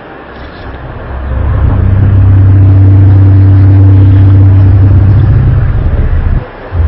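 Loud, low, steady drone with a few overtones, the kind of 'sky trumpet' hum reported as a strange sound from the sky. It swells in over the first two seconds, holds, then drops out for a moment near the end before returning.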